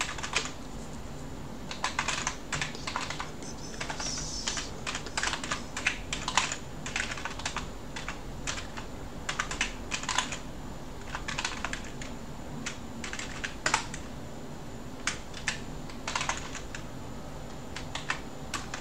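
Typing on a computer keyboard: irregular runs of key clicks with short pauses, entering a long package-install command in a terminal.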